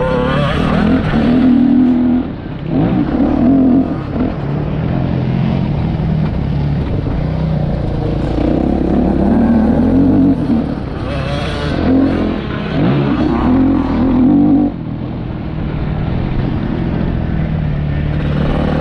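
Yamaha YZ motocross bike engine heard close up from on board, revving up and easing off over and over as it rides round a dirt track, with short drops where the throttle is closed.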